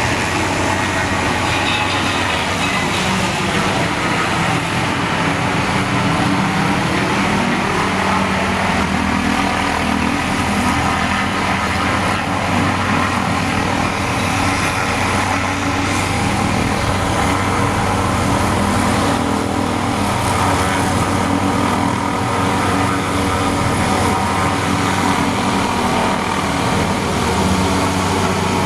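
Hughes 500D helicopter running steadily at a hover, its turbine and rotor making a loud, continuous drone whose pitch drifts slightly now and then.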